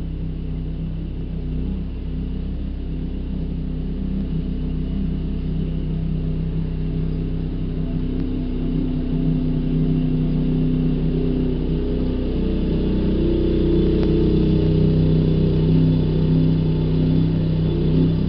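Motor vehicle engine running steadily with a low hum and rumble, slowly growing louder.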